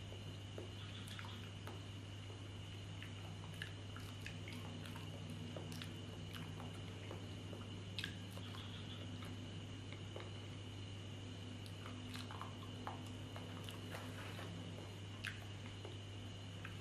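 A person peeling and eating small ripe bananas: soft chewing and wet mouth sounds with scattered short clicks, including a sharper bite about halfway through. Under it runs a steady low hum with a faint high tone.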